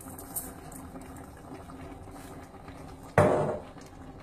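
Stew simmering in a steel pot, with a faint steady bubbling hiss. About three seconds in comes one short knock, the loudest sound here.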